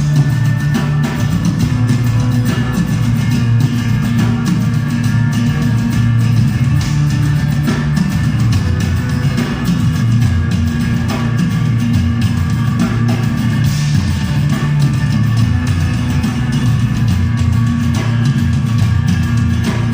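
Live band playing a heavy instrumental built on guitar over steady, tribal-style drumming and hand percussion.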